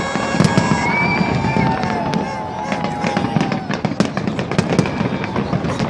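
Fireworks going off: a dense, irregular crackle of sharp bangs and pops, with a brief whistling glide about a second in.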